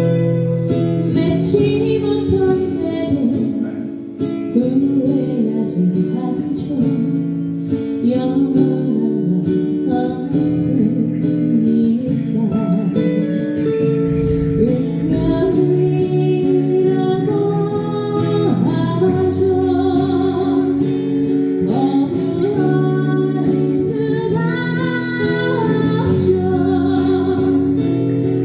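Slow ballad music: plucked acoustic guitar chords under a gliding lead melody line.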